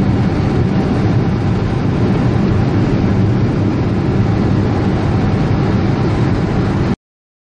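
Loud, steady low rumbling noise that cuts off suddenly about seven seconds in.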